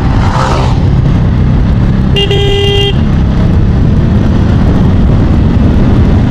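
Single-cylinder Bajaj Pulsar N160 riding at speed, with heavy wind rumble on the microphone. A vehicle horn sounds once, briefly, about two seconds in.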